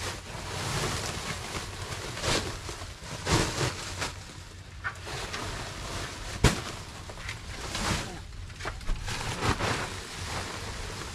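Full feed sacks being lifted, dragged and set down. It is a run of rustling scrapes and dull thumps, with one sharp knock about six and a half seconds in.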